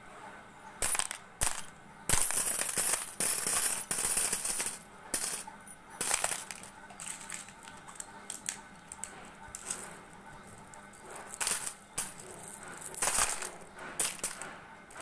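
Irregular clusters of bright clinking and jingling from small hard objects knocked together, with sharp single clicks in between.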